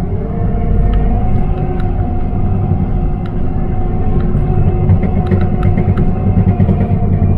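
Takeuchi TL12 R2 compact track loader's diesel engine running, heard from inside the cab, with a steady hydraulic whine over a deep rumble and scattered light clicks and knocks. The whine rises slightly in pitch at the start.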